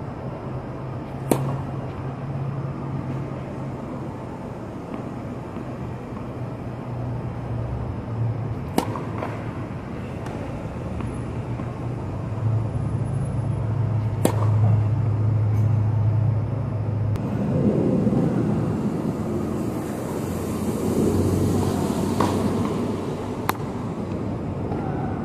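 Tennis racket striking the ball on serves: sharp pops several seconds apart, three clear ones and a shorter one near the end. Under them runs a steady low rumble of city traffic that swells for a few seconds late on.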